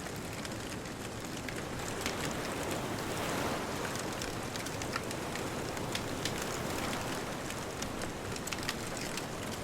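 Wood bonfire crackling with irregular sharp pops, a few of them louder, over a steady wash of distant ocean surf.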